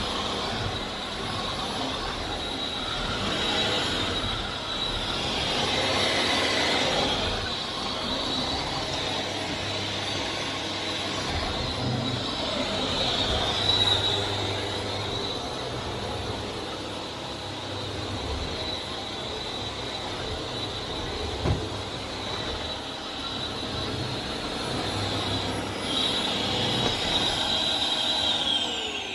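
Vax Air Steerable Max upright vacuum cleaner running with a steady high motor whine, its level rising and falling as it is pushed around. Near the end it is switched off and the whine falls away as the motor winds down.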